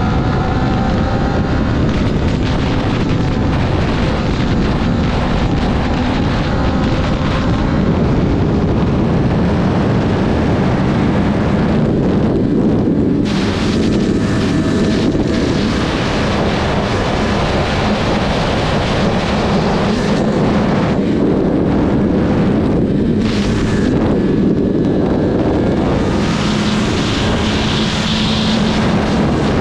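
Sport motorcycle running at highway speed, heard from on board: a steady engine note under heavy wind rush on the microphone.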